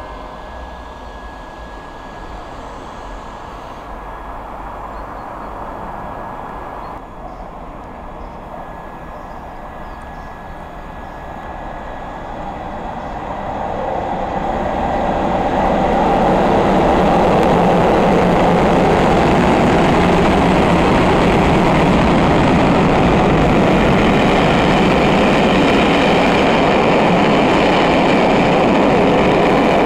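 Diesel locomotive hauling a charter train of passenger coaches through a station. It grows louder as it approaches, and from about halfway through the coaches roll past close by in a loud, steady rumble of wheels on rail.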